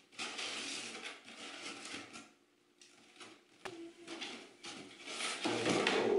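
Cardboard shipping box being opened: a box cutter slitting the packing tape, then the cardboard flaps scraping and rustling as they are pulled open, loudest near the end. A short knock a little over three and a half seconds in.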